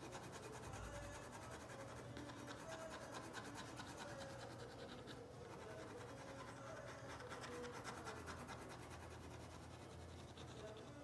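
Ink pen nib scratching across the drawing surface in rapid, continuous small hatching strokes, building up the dark shadow areas of the drawing.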